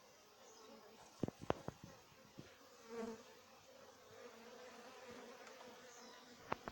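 Honeybees buzzing at a hive entrance: a faint, steady hum. Several sharp clicks come about a second in and one more near the end.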